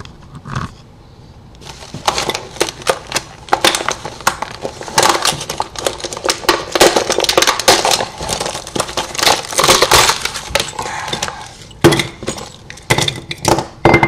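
Stiff clear plastic clamshell packaging being torn and pulled open by hand: a dense run of crackling and snapping that starts about two seconds in, with a few sharper cracks near the end.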